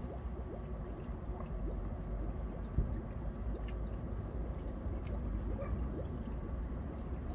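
Water trickling and dripping, with many small bubbling plinks over a steady low wash, and one brief knock about three seconds in.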